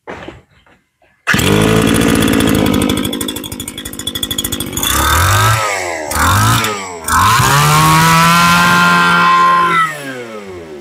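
Tanaka 22cc two-stroke brush-cutter engine catches about a second in and idles. It is revved briefly twice, then held at high revs for a few seconds before dropping back to idle near the end. It starts very easily and picks up throttle sharply.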